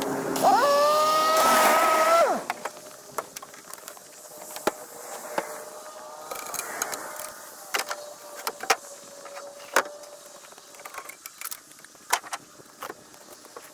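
Tucker 222 Kitten snowcat's engine, played back at eight times speed: a high, pitched whine rises as it revs about half a second in and drops away after about two seconds. A fainter steady tone and many quick clicks and knocks follow.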